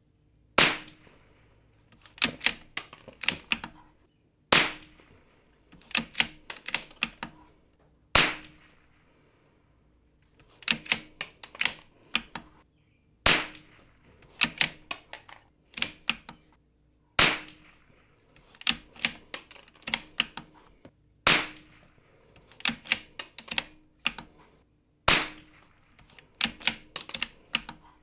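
A Savage Mark II bolt-action .22LR rifle firing single shots: seven sharp cracks about four seconds apart. A quick rattle of clicks follows each shot as the bolt is worked to eject the case and chamber the next round.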